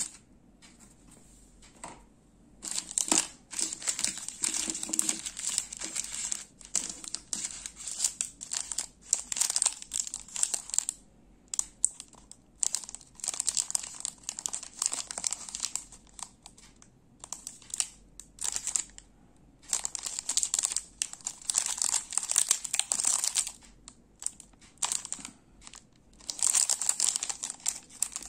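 Plastic cookie wrappers crinkling as hands pick up and shuffle a pile of small packets, in irregular bursts with short pauses between them.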